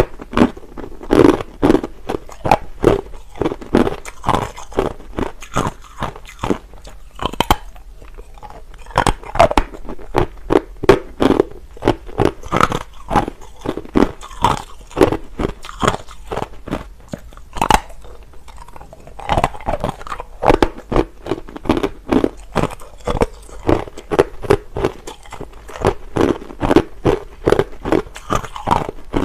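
Hard clear crushed ice being bitten and chewed: runs of loud, sharp crunches in quick succession, broken by a few short pauses between mouthfuls.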